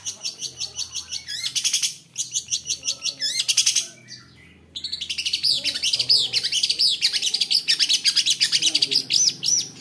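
Long-tailed shrike (cendet) singing fast: rapid strings of sharply repeated high notes, a short lull about four seconds in, then an unbroken run of varied warbled and whistled phrases that glide up and down, the mimicked 'fill' phrases this bird is kept for.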